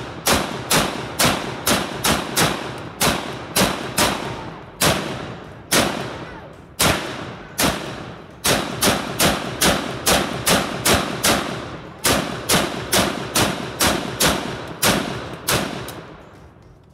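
AK-47 Draco pistol (7.62×39mm, semi-automatic) fired in quick succession, about forty shots at roughly three a second. In the middle there are a few slower shots about a second apart, and each crack echoes briefly. The firing stops near the end.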